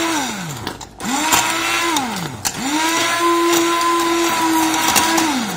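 Hand-held immersion blender running in hot cherry jam in short pulses: it spins down about half a second in, runs again briefly around the one-second mark, then runs for nearly three more seconds before spinning down near the end, its motor tone falling in pitch each time it stops. It is breaking up the chunks of cherry left in the jam, only lightly so the jam stays chunky.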